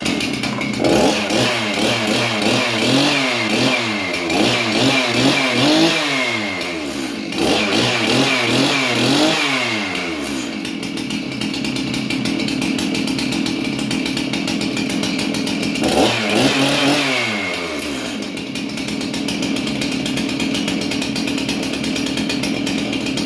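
Stihl MS311 two-stroke chainsaw engine running with its newly replaced ignition coil. It is revved up and down several times in quick succession, settles to a steady idle, is revved once more, then idles again. Running like this shows the new coil has fixed the no-start fault.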